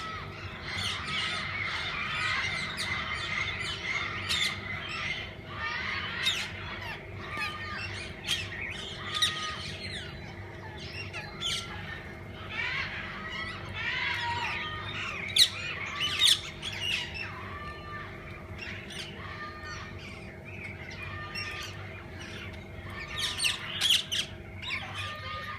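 A mixed flock of parakeets chattering and squawking together, with many sharp screeches and a short call repeated about once a second, over a steady low hum.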